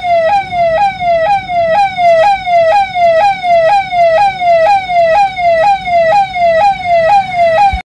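Ahuja PA-400DS siren amplifier sounding its yelp tone through 100-volt horn speakers: a loud electronic siren whose pitch jumps up and slides down about two and a half times a second. It cuts off suddenly near the end.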